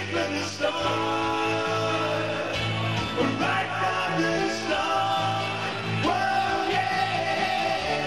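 Live band music, a passage of a song with no words made out: held melody notes over a bass line that changes note every second or so.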